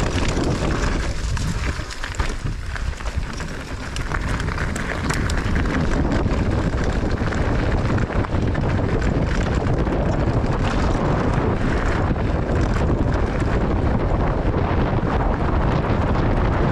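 Wind buffeting the microphone and mountain-bike tyres rolling over a dirt trail during a fast descent. The noise eases for about two seconds near the start, then runs loud again.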